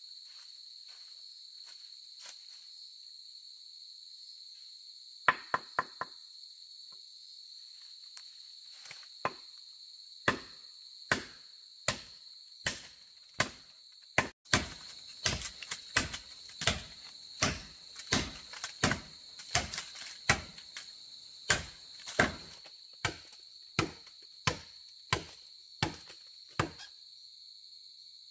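Sharp chopping blows into green bamboo: a few scattered strikes, then from about ten seconds in a steady run of roughly one blow every three quarters of a second, stopping shortly before the end. Insects keep up a steady high-pitched whine underneath.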